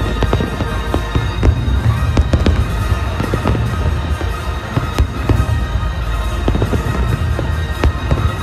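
Aerial fireworks bursting in quick succession: a dense run of bangs and crackles over a deep rumble, with music playing underneath.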